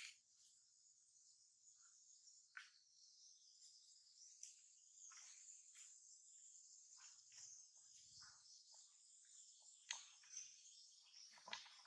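Faint, steady high-pitched drone of an insect chorus, with a few soft scattered clicks.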